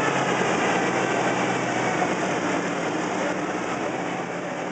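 Modified garden pulling tractor's engine running steadily at the end of its pull, with general arena noise, gradually fading out.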